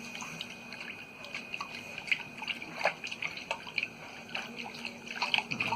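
Water from a tap splashing and dripping as a child washes his hands with soap, in irregular small splashes that come thicker about halfway through and again near the end.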